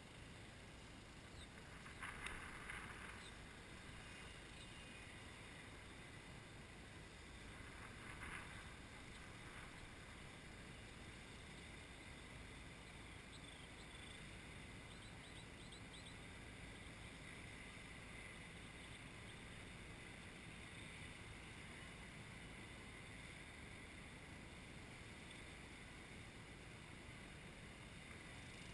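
Near silence: faint outdoor ambience, with two brief faint swells about two and eight seconds in and a few faint high chirps near the middle.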